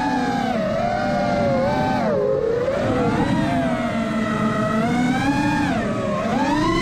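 Electric motors of an FPV quadcopter whining in flight, several tones rising and falling together with the throttle. The pitch dips about two seconds in, stays lower for a while, then climbs again near the end.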